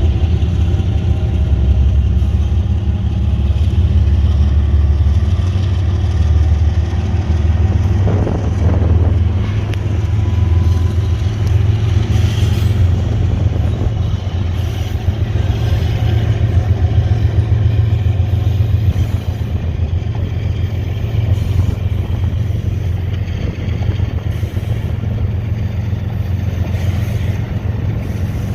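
Amtrak diesel locomotive engines running loud and steady under power as the passenger train departs, a deep drone with a haze of rail and wheel noise above it.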